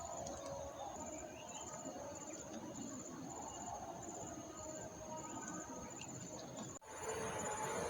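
Outdoor insect chorus: a steady high-pitched chirring with short cricket-like trills repeating about once a second, over a soft background hiss. About a second before the end the sound cuts abruptly, and a second, higher insect buzz joins a slightly louder ambience.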